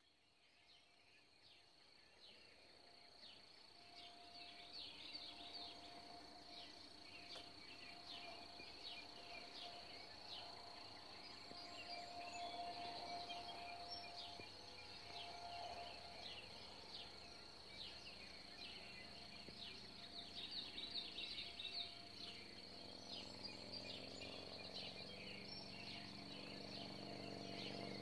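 Quiet outdoor insect chorus: a steady high-pitched trill with many short high chirps over it, fading in over the first few seconds. A faint low drone builds near the end.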